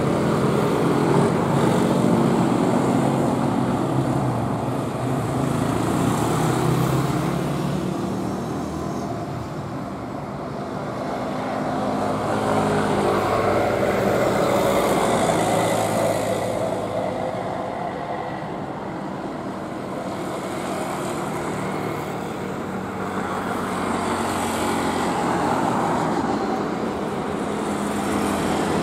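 Airbus A320neo's CFM LEAP-1A turbofan engines on a takeoff roll: a steady jet rumble that swells and eases in loudness several times, with a low hum in the first few seconds.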